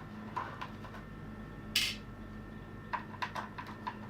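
Small screwdriver clicking and tapping while screws are backed out of an Amiga 500 keyboard's plastic housing. There is a short scrape a little before halfway and a quick run of light clicks near the end.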